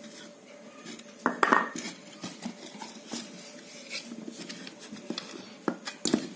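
Plastic housing halves of a hot air gun being pulled apart and handled: a series of light clicks and clatters, loudest about a second and a half in, with a few more near the end.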